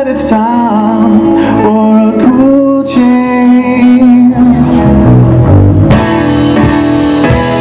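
Live band playing a soft-rock song with electric guitar, bass, drums and keyboards, with voices singing over it.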